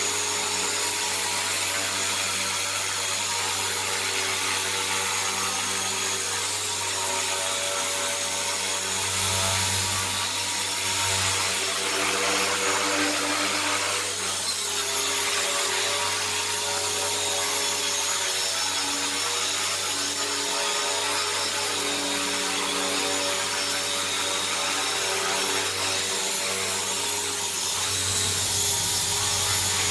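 A WLtoys V950 RC helicopter flying, its brushless motor whining and rotor blades buzzing steadily. The pitch of the whine drifts up and down as the throttle changes.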